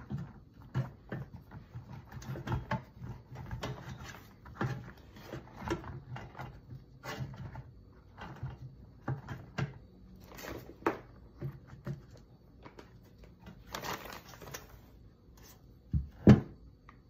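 Breaded chicken strips being taken from a plastic bag and laid into a silicone liner in an air fryer basket: irregular light knocks and taps with rustling of the bag, and one louder thump near the end.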